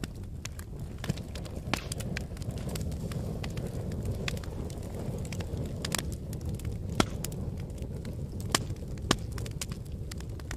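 Wood fire burning in a fireplace: a steady low rumble of flame with frequent sharp, irregular crackles and pops of burning logs, the sharpest pop about seven seconds in.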